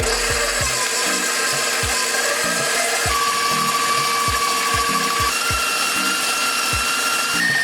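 Electric stand mixer running steadily with its paddle attachment, creaming almond paste and sugar: a steady motor and gear whine.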